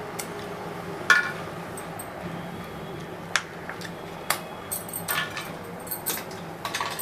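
Scattered light clinks and knocks of metal kitchenware, about seven in all, the loudest about a second in, over a low steady hum.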